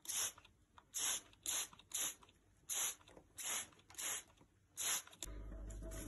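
Cockatiel preening and ruffling its feathers on its perch: about nine short, dry rustling crunches, about half a second apart. Near the end a kitchen tap starts running steadily into a sink.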